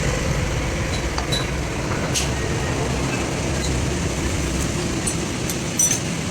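A heavy vehicle's engine running steadily with a low rumble, with a few light metallic clinks over it.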